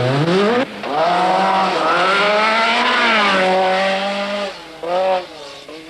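A Group B rally car's engine revving hard under acceleration. The note climbs, drops at a gear change about half a second in, climbs again for several seconds, then eases off with a short throttle blip near the end.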